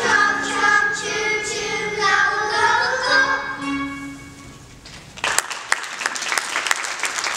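A group of young children singing the end of a song to accompaniment, fading out after about four seconds, followed by an audience breaking into applause.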